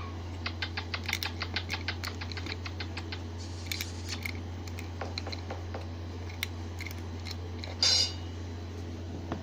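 Rapid sharp clicking, about six clicks a second for the first few seconds, then scattered clicks, with one short loud burst near the end. A steady low hum runs underneath.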